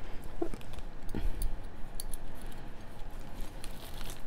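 Scattered light clicks and ticks of hands handling small beads and beading cord.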